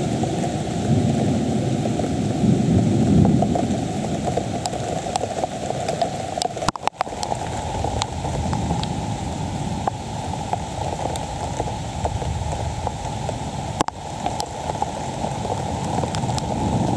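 Steady heavy rain hissing down with scattered drips. A low rumble of thunder swells about a second in and fades by about four seconds.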